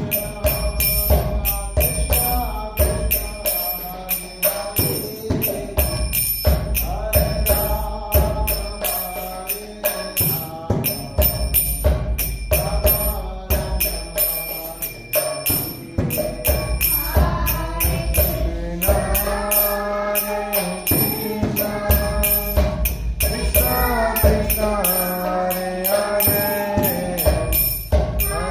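Devotional mantra chanting sung by voices over a steady rhythm of jingling metal percussion and a low drum.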